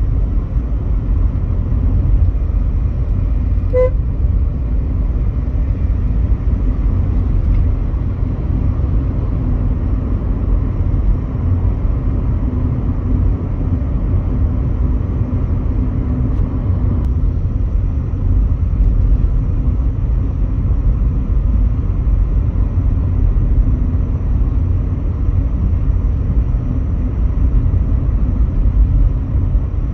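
Steady low rumble of engine and tyre noise heard inside the cabin of a Volkswagen Polo GT driving on a road, with one brief horn toot about four seconds in.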